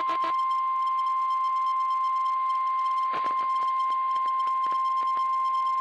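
NOAA Weather Radio's 1050 Hz warning alarm tone: a single steady, loud beep-like tone held throughout, with scattered clicks of radio crackle. It is the alert tone that precedes the tornado watch broadcast.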